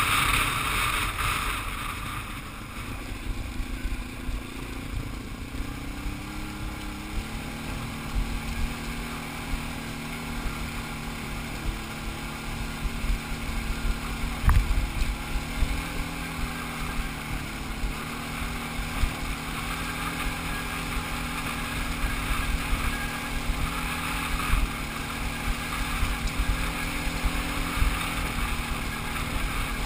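Quad ATV engine running under way on a gravel track, its pitch stepping up and down a few times with the throttle. One sharp knock about halfway through.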